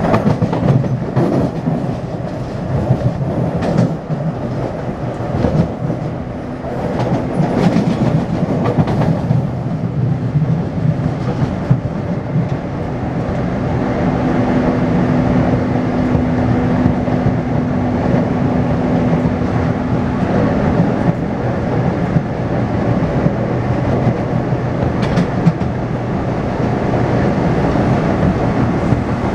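Taipei Metro C301 train with retrofitted propulsion running on the line, heard from inside the car: steady rail rumble with wheels clacking over the track. A steady hum holds one pitch for several seconds around the middle, from the propulsion inverter, which the title flags for an abnormal noise.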